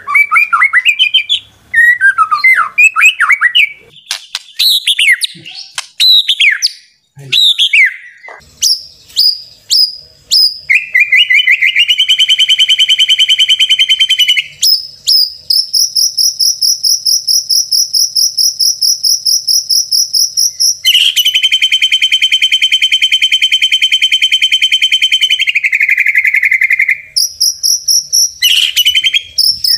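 White-rumped shama (murai batu) song played as a lure call: rapid, varied whistled phrases with quick pitch glides, then long, fast, even trills held for several seconds at a time, before the whistled phrases return near the end.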